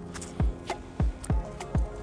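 Background music with held tones and a regular beat.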